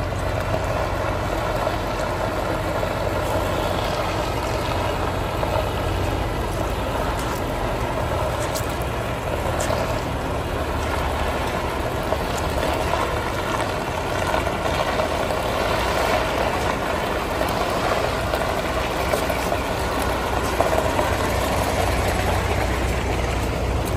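1984 Scania T112H truck's 11-litre straight-six diesel engine idling steadily, at an even pitch with no revving.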